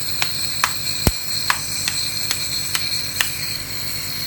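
Nebulizer air compressor running, a steady hum with a high whine, with an even ticking a little over twice a second.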